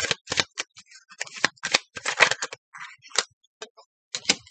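Tarot cards being handled and drawn from the deck: an irregular run of crisp card snaps and rustles.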